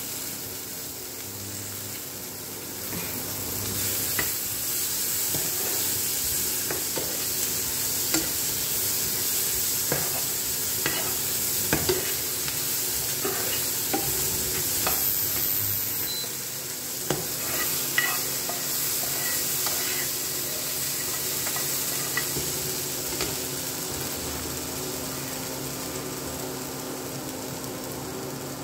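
Sweet corn kernels, green capsicum and tomato sizzling in a nonstick frying pan while a plastic spoon stirs them, with irregular scrapes and taps of the spoon against the pan. The stirring is busiest from a few seconds in until near the end, when it stops.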